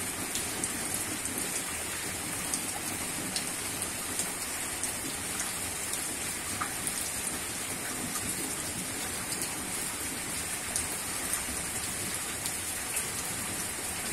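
Steady rain falling, a constant hiss with scattered small ticks of drops striking surfaces.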